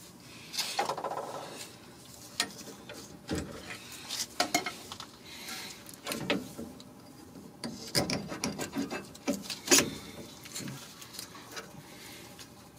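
A rusty rear brake caliper and its hardware being handled and fitted by hand: irregular metal clinks, knocks and scraping, with one sharp click near the end.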